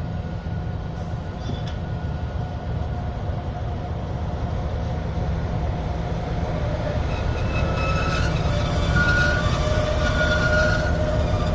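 MÁV M62 'Szergej' diesel locomotive, with its two-stroke V12 engine, rumbling as it hauls a passenger train slowly past, growing louder as it nears. High squealing tones join in about seven seconds in.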